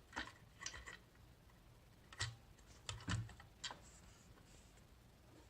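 A few light clicks and knocks, one with a dull thump about three seconds in: an electronic safe's unscrewed faceplate being handled and worked at while it is caught on something inside.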